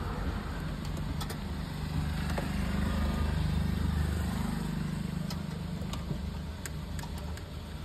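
A motor vehicle's engine running with a steady low hum, growing louder around the middle and then fading. Faint light clicks sound over it.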